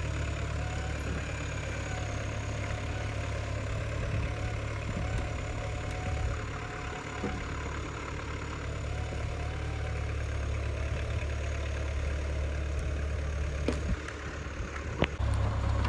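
Backhoe engine running steadily at a low, even pitch, with a couple of sharp clicks near the end.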